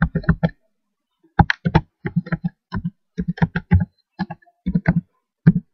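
Typing on a computer keyboard: quick, irregular runs of key clicks with a pause of nearly a second early on.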